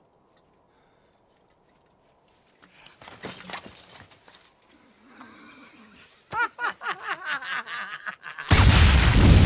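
Brief rustling movement, then two men laughing hard, cut off about a second before the end by a sudden loud explosion of nitroglycerin that keeps rumbling on.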